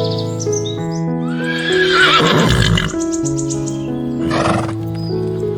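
A horse whinnies once, a loud wavering call about a second and a half in, over background music of steady held notes. A short noisy burst follows a couple of seconds later.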